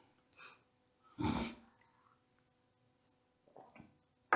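A short breathy exhale, like a sigh, about a second in, with a few faint clicks around it and another sharp breath starting right at the end.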